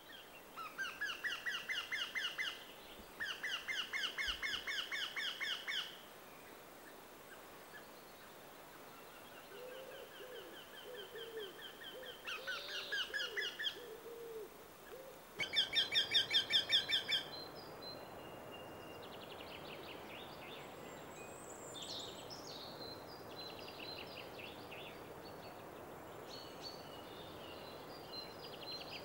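Eurasian wryneck calling: runs of about a dozen evenly repeated notes, each run lasting two to four seconds, given four times in the first eighteen seconds. The last run is the loudest. Other birds sing faintly after that.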